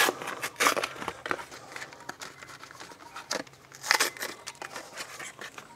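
Foil wrapper being peeled off a block of cream cheese taken from its cardboard carton: irregular crinkling and rustling, with a few sharper crackles near the start and again about three and a half to four seconds in.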